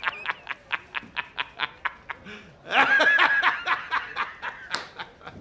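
A man laughing hard and mockingly in rapid 'ha-ha' pulses, about four or five a second, with a louder drawn-out burst of laughter about three seconds in, then fading pulses: a meme film clip of a newspaper boss cackling.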